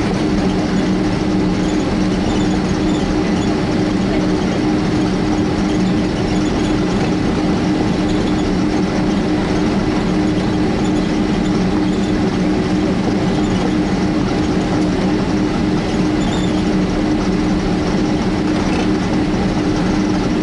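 Cabin noise of a Boeing 767-300 taxiing, heard from inside near the wing: a steady engine drone with a low, even hum that neither rises nor falls.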